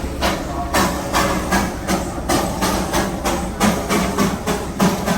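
Darjeeling Himalayan Railway narrow-gauge steam locomotive chuffing along, its exhaust beats coming about three a second in a slightly uneven rhythm.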